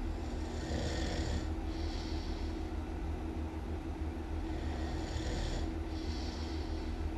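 A person snoring in slow breaths, the breath noise breaking off briefly about a second and a half in and again near the end, over a steady low hum.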